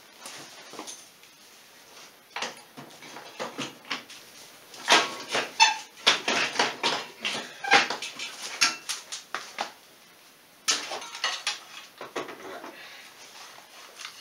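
Metal clanking and clinking of tools and bolts knocking against an ATV's engine and frame as the engine is worked into line with its mount bolt holes. Scattered sharp knocks, some with a short ring, come thickest through the middle, with a loud clank about eleven seconds in.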